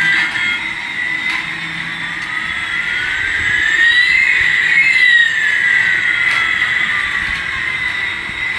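Electronic toy sound effect: a steady high whine with two sliding tones, one rising and one falling, crossing about halfway through.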